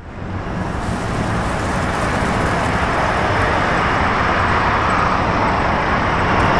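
Street traffic noise, a steady rush of passing cars, fading in over the first second.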